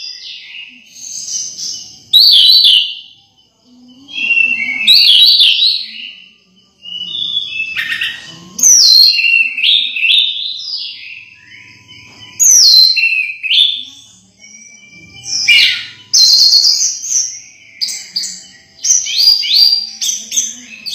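Orange-headed thrush singing: a string of short, high, varied whistled phrases, each a second or two long, with brief pauses between them.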